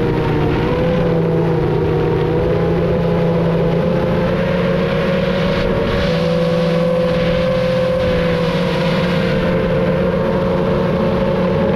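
FPV racing drone's motors and propellers whining steadily in flight, the pitch shifting a little with throttle, over rushing wind noise.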